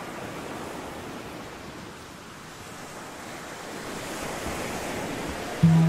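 Ocean surf washing steadily on the shore, swelling slowly louder. Music with a strummed guitar comes in abruptly right at the end.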